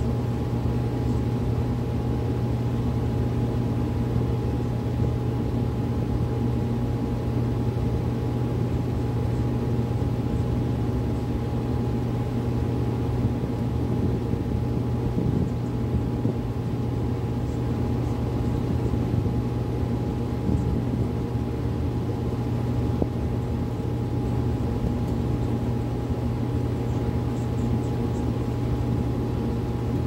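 Miller E2 series electric furnace running in heating mode: a steady blower whir over a low electrical hum, with a thin steady whine above it.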